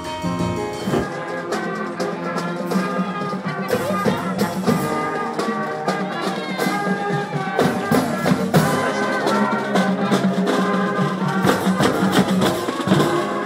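Marching band playing: brass horns over a beat of drum strikes.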